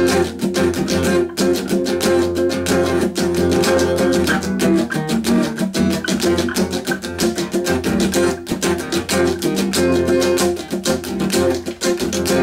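Acoustic guitar strummed in a steady rhythm, chords ringing with no singing.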